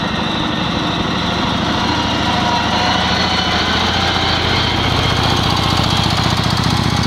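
Small tractor's engine running steadily as the tractor drives past at close range, with an even chugging firing beat that grows louder about two seconds in as it comes near.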